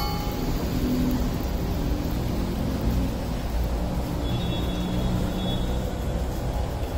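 Steady low rumble with a light hiss, as a block of butter melts and sizzles gently on a hot flat iron griddle (tawa).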